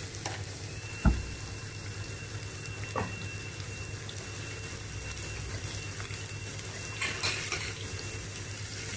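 Sliced shallots and chopped garlic sizzling gently in coconut oil in a frying pan, with a thump about a second in, a click near three seconds and a few crackles near the end. A thin steady high tone runs under most of it.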